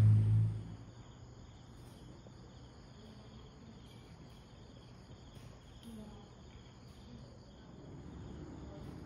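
Crickets chirping steadily and faintly. A loud low hum dies away within the first second.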